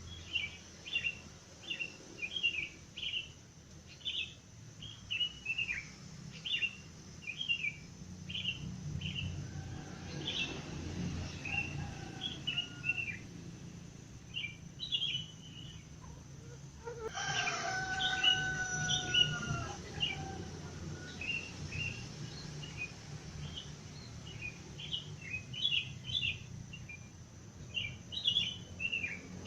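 Small birds chirping in short repeated phrases throughout, with a rooster crowing once about two-thirds of the way through. A low rumble sits underneath from about a quarter of the way in.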